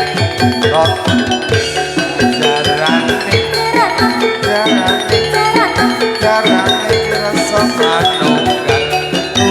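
Javanese gamelan music for a jathilan dance: metallophones strike a fast repeating melody over drums, with a singer's voice gliding above it.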